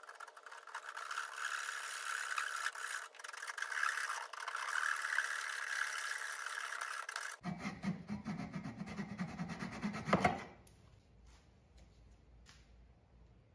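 Fine-toothed hand saw cutting through red oak in quick, rapid strokes. About seven seconds in the sawing turns lower and coarser, ending in a sharp snap about ten seconds in.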